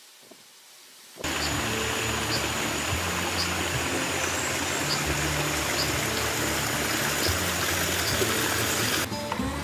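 Stream water rushing and splashing over rocks. It starts suddenly about a second in and cuts off just before the end, with background music underneath.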